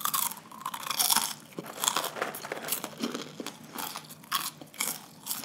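Popcorn being bitten and chewed close to a condenser microphone: a run of irregular crunches.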